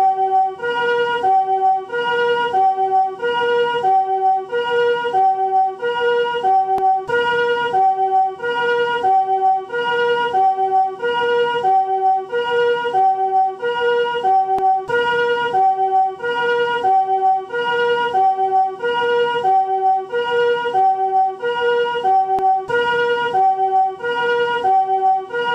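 Japanese ambulance electronic siren in its harmonic, chord-tone version, sounding the two-tone high-low "pee-po" call. Each step is a chord of several tones, and the alternation repeats evenly and steadily.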